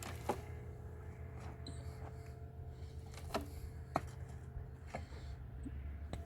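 A few sharp clicks and knocks, spaced irregularly, over a low steady hum.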